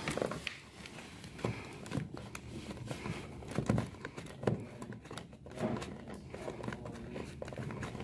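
Irregular clicks, small knocks and rustling from handling a coaxial cable and screwing its F-connector onto the port of a wall-mounted cable box.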